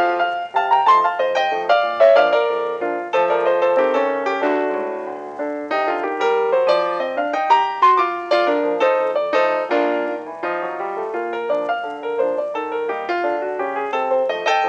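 Background piano music: a quick, continuous run of struck notes.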